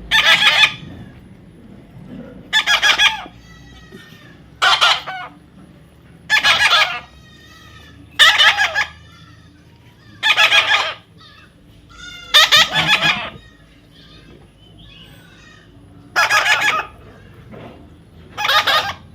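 Parrot squawking: a string of nine harsh calls, about one every two seconds, with a longer pause a little past the middle.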